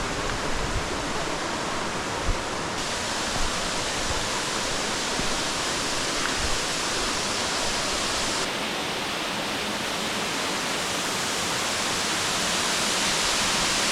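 Steady rushing of a waterfall, growing a little louder near the end, with a few soft low thumps in the first half.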